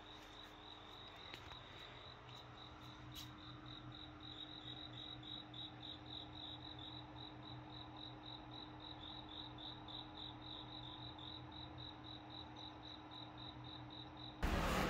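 A cricket chirping in a steady run of short, high chirps, about four a second, over a faint steady hum.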